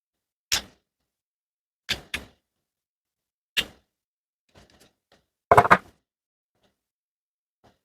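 Short knocks and clicks of small hair-clipper parts being handled and pried at, a glued part resisting removal. They come one or two at a time a second or so apart, with the loudest cluster about five and a half seconds in.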